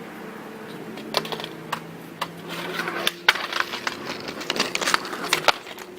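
A skateboard rolling with a dense run of sharp clicks and wooden clacks from the board, starting about a second in and thinning out near the end.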